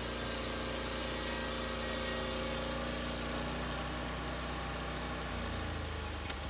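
Norwood LumberPro HD36 sawmill's engine idling steadily. Its tone changes about five seconds in, and a click comes near the end.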